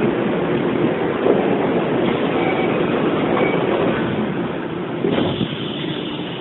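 Running sound inside a Hokuso 7500 series electric train car, which has a Toyo Denki IGBT-VVVF inverter: a steady rumble of wheels and traction equipment. About five seconds in the sound shifts, with the middle of the noise dropping and a high hiss coming in.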